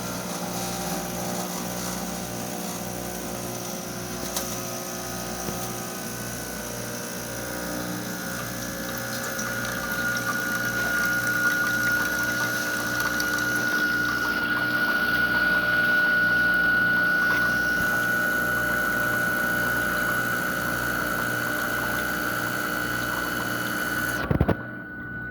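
Expobar Office Lever espresso machine's pump running steadily under pressure while it pulls a shot, with a pulsing hum and a steady high whine that grows stronger partway through. About a second before the end there is a sharp clunk and the pump cuts off.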